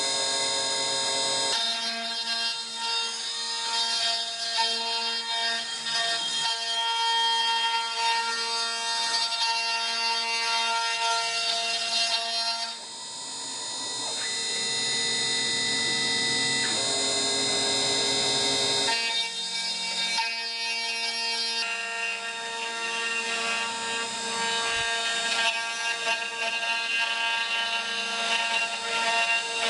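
High-speed spindle of a CNC rotary wood-carving router whining steadily as its end mill cuts relief into a turning wooden column. The pitch and mix of tones shift a few times, with a brief dip about 13 s in.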